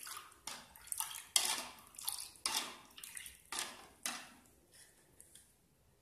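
A plastic spoon stirring coloured salt water in a plastic bowl, mixing in orange colour for a gel hand wash. Quick swishing strokes come about twice a second and stop about four seconds in.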